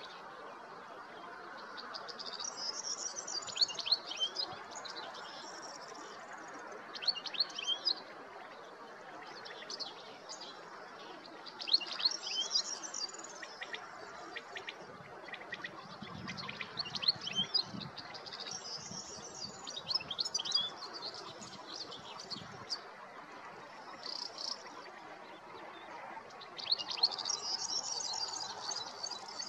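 European goldfinch singing its spring song: repeated bouts of rapid, high twittering and trilling notes, each a few seconds long, with short pauses between.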